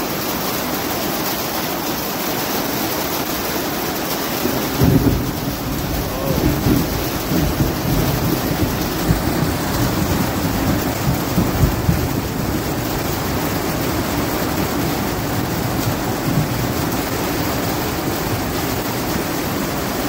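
Heavy rain pouring down on paved ground, a steady loud hiss, with low rumbling surges from about five to twelve seconds in.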